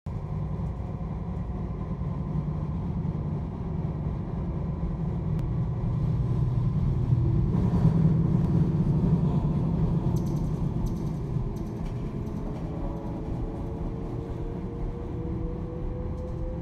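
Passenger train running, heard from inside the carriage: a steady low rumble that swells about halfway through, with a faint whine slowly rising in pitch near the end as the train gathers speed.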